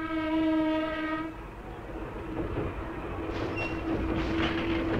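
Train horn sounding one long steady note that fades out about a second in, followed by the low rumble of a train running, with a few scattered clicks.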